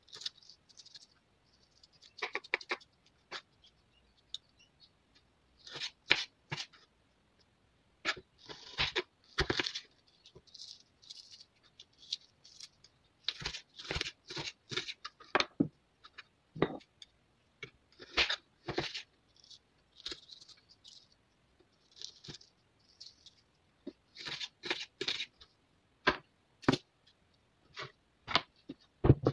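Kitchen knife cutting fresh red chillies on a wooden cutting board: irregular taps of the blade on the board and short slicing and scraping strokes, with pauses between.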